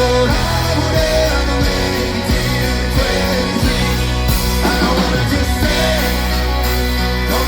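Live pop-rock band playing loud and steady: drums keeping a regular beat under bass and guitar, with a male lead vocal singing over them.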